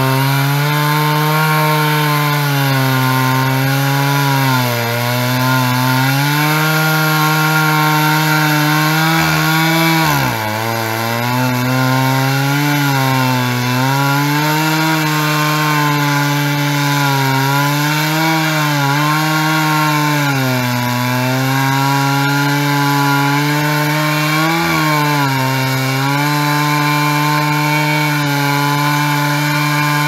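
Stihl 660 two-stroke chainsaw running at full throttle while ripping a log lengthwise on a chainsaw mill. Its engine pitch sags and recovers every few seconds as the cut loads it, with one deeper bog about ten seconds in.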